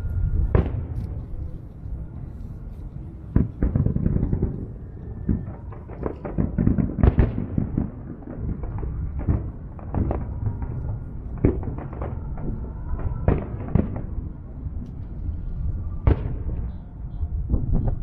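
Fireworks display: aerial shells bursting one after another, a string of sharp bangs at uneven intervals over a continuous low rumble.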